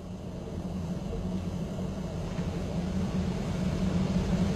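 A low mechanical rumble with a steady hum, growing gradually louder.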